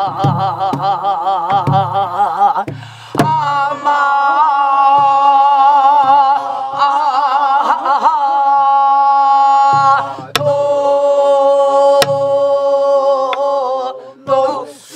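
Voices singing a slow Korean Namdo folk song together, led by a woman, with long held notes and a wide shaking vibrato at the start. Soft low thumps of sori-buk barrel drums beaten with a drumstick run under the song, with a few sharp taps.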